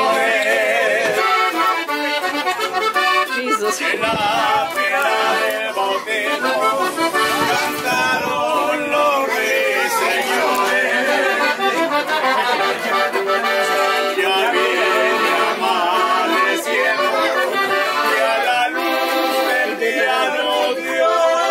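Live accordion music with guitar accompaniment: the accordion plays a wavering melody continuously over the guitar, in a traditional Mexican style.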